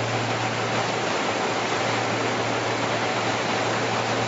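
Fully automatic baby diaper production machine running: a steady, even rushing noise with a constant low hum and no breaks or changes.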